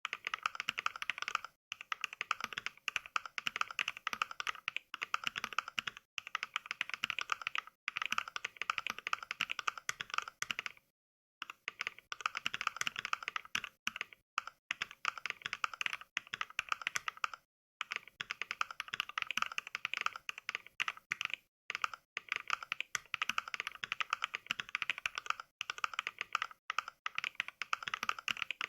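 Fast typing on a mechanical keyboard, rendered as simulated NK Cream switch sounds from the Mechvibes app: a quick, steady patter of key clicks in runs, with brief pauses between them, the longest about eleven seconds in.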